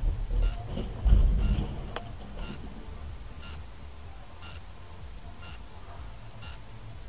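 An electronic beep repeating once a second, seven times, over a low rumble, with a louder low burst of noise about a second in.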